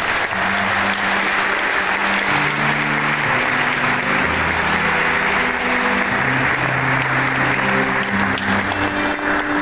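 A congregation clapping steadily throughout, over music with long held low notes that change every second or two.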